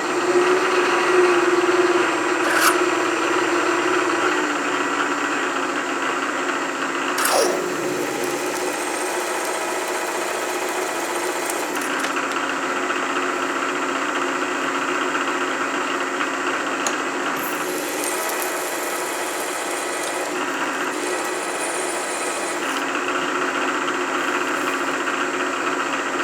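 Milling machine spindle running steadily with a hum while a drill bit cuts a hole in a stainless steel plate lubricated with Anchor Lube cutting fluid. A brief sound falling in pitch about seven seconds in.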